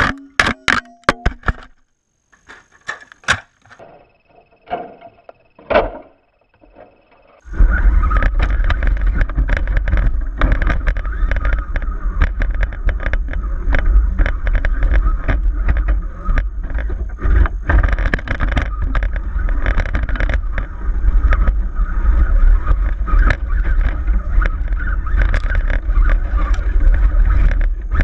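Onboard audio from a scale RC rock crawler (Axial SCX10) driving over rock: a quick run of sharp knocks and clatter, then a few quieter seconds with scattered ticks. About seven seconds in, a loud steady low rumble sets in, with constant rattling and clicking as the truck and its camera jostle over the trail.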